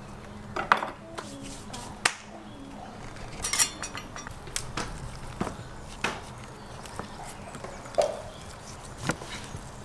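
Food-preparation handling sounds: a string of light knocks, taps and clicks, roughly one a second, as raw meat chops and utensils are handled on a wooden board, with a short rattle about three and a half seconds in.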